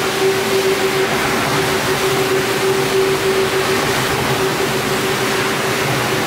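Rotary floor scrubber running over a soapy, foam-covered rug: a steady motor hum over the even wet hiss of the spinning brush scrubbing the pile.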